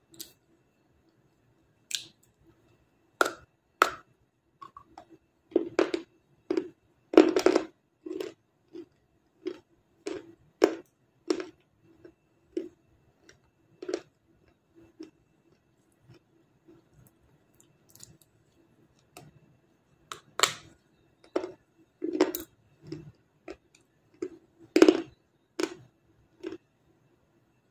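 Bites and chewing crunches of a brittle white 'black star' slab, close to the mouth: sharp, irregular cracks, often about one a second, loudest about seven seconds in and again near twenty-five seconds. A faint steady hum runs underneath.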